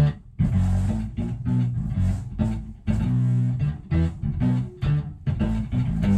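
Electric bass played through a sub-octave pedal, a bass chorus and a SansAmp Bass Driver with a little drive, for a fat synth-like fuzz tone. It plays a choppy run of short staccato notes with brief gaps between them.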